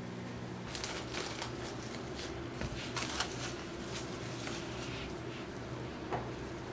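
Plastic cling film crinkling as it is peeled off a glass mixing bowl: a run of short, irregular crackles starting about a second in, over a faint steady hum.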